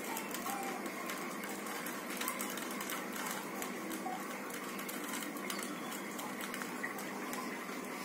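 Plastic 3x3 Rubik's cube being turned quickly in the hands, its layers clicking and clattering in a fast, irregular run over a steady background hiss.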